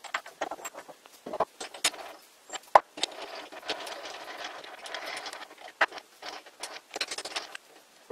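Metal-on-metal handling of a lathe chuck and chuck key: scattered sharp clicks and clinks, with a continuous scraping stretch from about three to five and a half seconds in.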